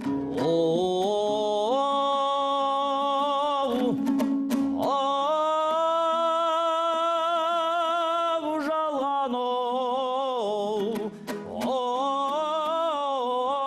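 A Kazakh folk song sung over plucked-string accompaniment: the voice holds three long notes with a wavering vibrato, with short plucked strokes between the phrases.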